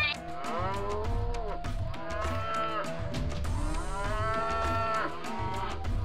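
Cattle mooing about four times, the longest call near the middle, over background music with a steady beat.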